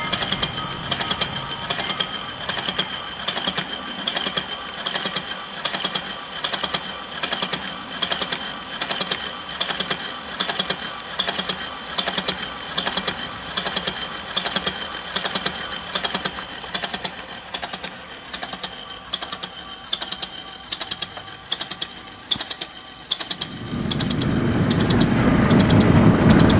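Homemade train-ride motion platform: an electric motor turning a pulley and cam under a spring-mounted plywood board, with a steady high whine and rapid, regular clicking and clacking from the mechanism. Near the end a louder low rumble rises in and becomes the loudest sound.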